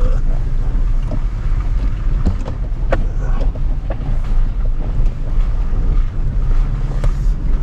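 Toyota Tacoma pickup rolling slowly over a rough, wet dirt and gravel road, heard from inside the cab: a steady low rumble of engine and tyres, with a few sharp knocks from stones and the truck jolting over the ruts.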